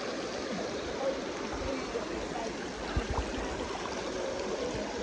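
Steady rushing of running water, with a few low thumps about one and a half and three seconds in.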